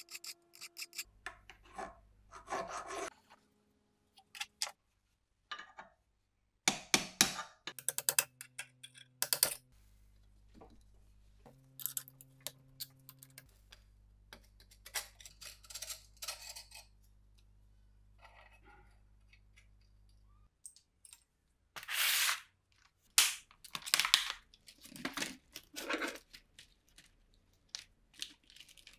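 Intermittent bench-work handling sounds: short scrapes, clicks and knocks from metal parts and tools, separated by quiet gaps. A louder run of scraping and crackling comes about three-quarters of the way through.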